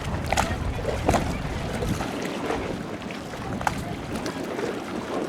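Outdoor street ambience: a low rumble that drops away about two seconds in, with scattered short clicks and taps and faint voices.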